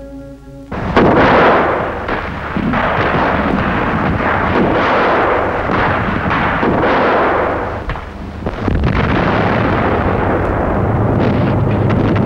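Battle noise: dense, continuous gunfire and explosions that start abruptly about a second in, with a brief lull near eight seconds.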